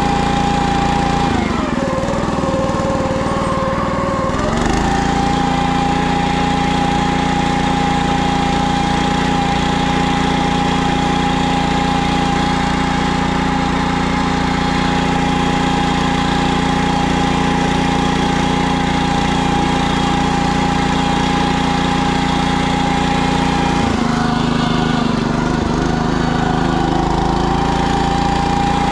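Small engine of a PermaGreen ride-on spreader-sprayer running steadily while driving across the lawn, with a steady high whine over the engine note. The pitch sags for a few seconds twice, shortly after the start and again near the end, then comes back up.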